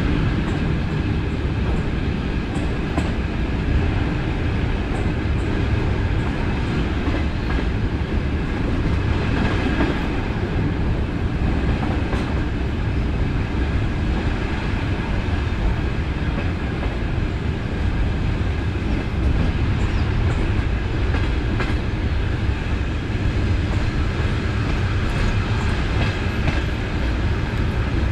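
DC electric multiple-unit suburban train running along the line, heard from inside the car: a steady low rumble from the running gear, with a faint steady whine and occasional light clicks.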